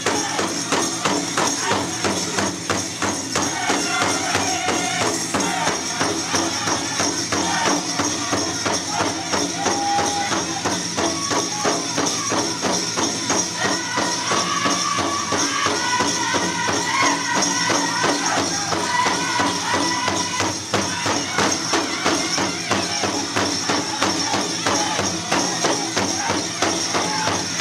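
A powwow drum group beats a steady rhythm on the drum and sings a chant, with rising and falling voices. The bells on many dancers' regalia jingle over it without a break.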